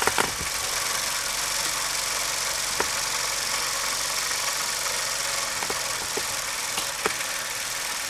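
Homemade compressed-air engine running, with a steady hiss of escaping air and several light clicks scattered through it. The hiss is the air blow-by in the engine: a lot of air slips by its loosened, low-friction parts.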